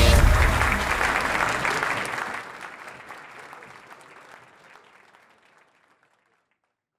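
Audience applauding, the clapping fading out gradually over about five seconds until it is gone.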